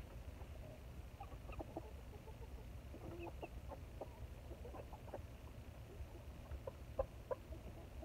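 A small flock of hens clucking quietly, short scattered clucks one after another, over a low steady rumble.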